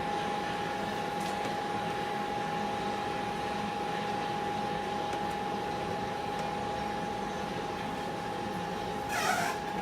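Steady hiss with a constant high-pitched whine, and one short whoosh about nine seconds in.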